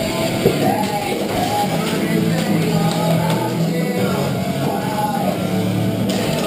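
Loud rock music with singing and guitar, playing steadily.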